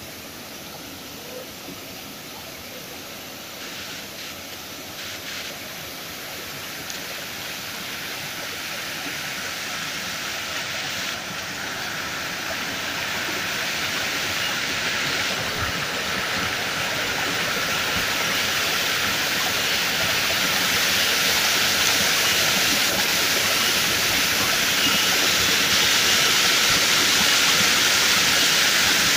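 Forest stream rushing and splashing as it cascades over boulders in a small white-water fall. The rushing noise grows steadily louder throughout.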